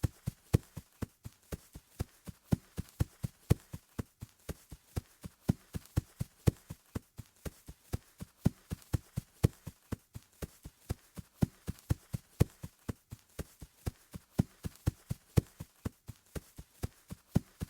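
Footsteps running on grass: a steady run of soft thuds, about three a second, some strides landing louder than others.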